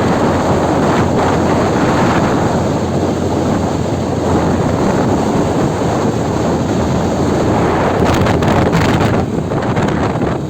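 Heavy wind buffeting the microphone of a moving motorcycle, a loud steady rush, with a few sharper gusts around eight seconds in.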